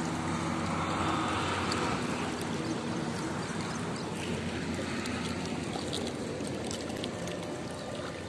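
River water flowing, a steady rushing noise.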